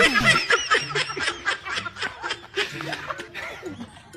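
A man laughing hard: a fast run of short repeated bursts of laughter that fades away near the end.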